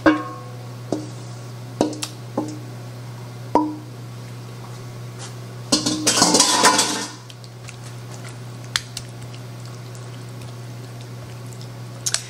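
A spatula knocking against a stainless steel mixing bowl, about six sharp ringing taps, to shake thick casserole mixture out into a glass baking dish. About six seconds in there is a second or so of louder clattering and scraping of utensils and dishes.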